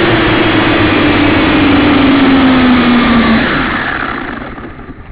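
Syma X5C quadcopter's small electric motors and propellers whirring loud and close through its onboard camera. The whine slides slowly lower in pitch, then dies away about four seconds in as the motors wind down with the drone resting on the ground.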